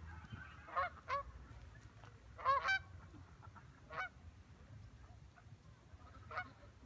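Geese honking in short calls: two near the start, a quick run of three about two and a half seconds in, then single honks at about four and six seconds.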